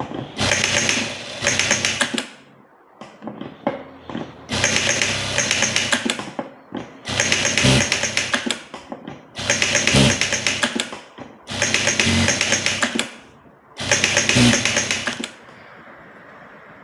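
Sewing machine stitching in six short runs of about two seconds each, the rapid needle clatter stopping briefly between runs.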